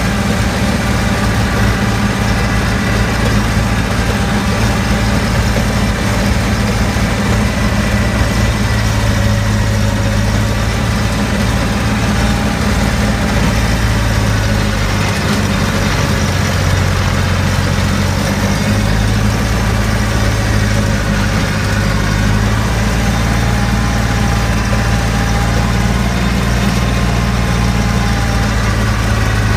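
Small farm tractor's engine running steadily while the tractor drives along, heard close up from the driver's seat.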